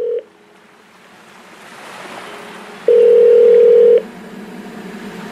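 Telephone call tones: a steady low beep stops just after the start and a second one sounds for about a second midway. Under them is a soft rushing noise that slowly grows louder.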